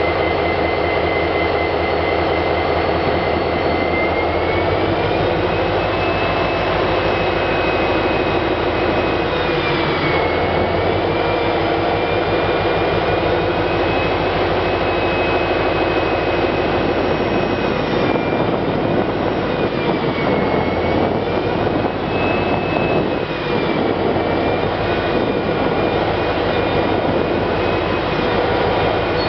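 EMD SD40-2 diesel-electric locomotive running, its turbocharged 16-cylinder two-stroke engine giving a steady heavy rumble under a high turbocharger whine. The whine rises about four seconds in, then dips and recovers several times as the throttle changes.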